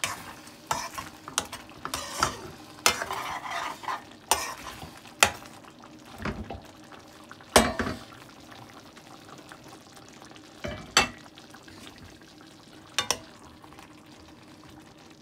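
Metal utensil scraping and knocking against a frying pan as liver, bacon and onion gravy are dished out. The knocks are sharp and irregular, with the loudest about seven and a half seconds in, and they thin out in the second half.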